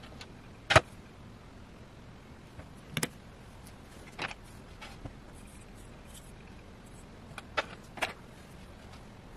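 Small metal binocular parts being handled and set down in a metal baking tray: a scattering of about seven sharp clicks and knocks, the loudest under a second in.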